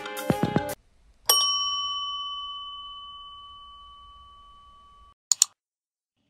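Background music cuts off, then a single bell ding rings out and fades slowly over about four seconds, followed by two quick mouse-click sounds from a subscribe-button animation.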